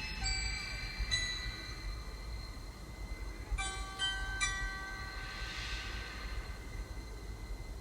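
A train car rumbling steadily along with bell-like chime notes over it: two near the start, then three in quick succession about three and a half seconds in.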